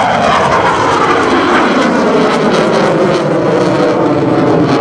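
F/A-18 Hornet's twin General Electric F404 engines running loud in afterburner during a pass, a rough, crackling roar with a whine that falls steadily in pitch as the jet moves away.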